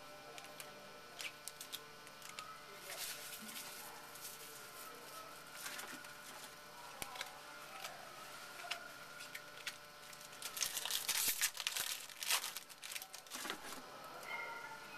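Baseball card-pack wrappers crinkling and tearing as packs are opened and the cards handled, in scattered rustles with a louder stretch of crinkling about two-thirds of the way through.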